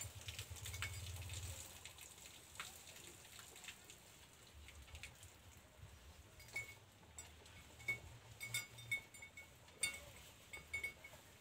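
Young bull calf feeding in a shed, dry grass and straw rustling and crackling with scattered clicks. Short high chirps come in from about halfway through.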